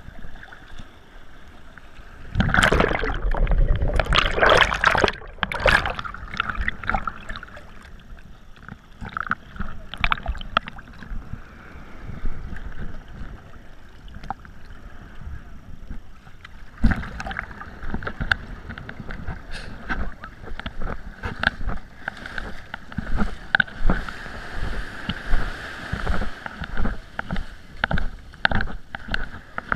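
Small waves washing and sloshing around a kayak in shallow surf, heard from a camera at the waterline. There is a burst of loud splashing a few seconds in, then quieter wash, and from about halfway on, repeated short splashes as waves wash up the beach.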